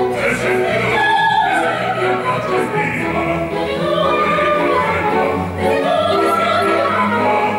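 Live opera: an orchestra playing an accompaniment of short repeated notes, with operatic singing over it.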